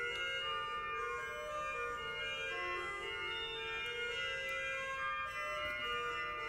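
Organ music: several notes held together as chords, shifting to new pitches every second or so at a steady level.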